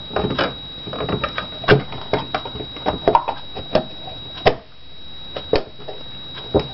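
Irregular knocks, clicks and scrapes of a small speaker box being handled, turned over and set down on a wooden desk, over a steady faint hiss and a thin high-pitched whine.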